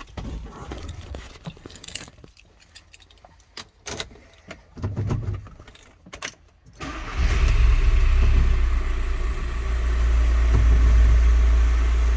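A few clicks and knocks, such as keys and handling in the cab, then the VW T5 Transporter's engine starts about seven seconds in and runs steadily at idle, a test run after the ABS sensor wiring repair.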